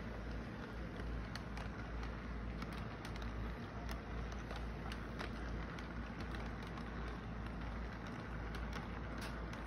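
Toy train cars rolling along a plastic track: a steady rumble and hiss with scattered small clicks.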